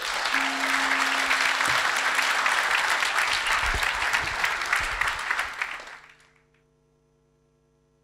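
Conference audience applauding a finished talk, fading out about six seconds in and leaving a faint held tone.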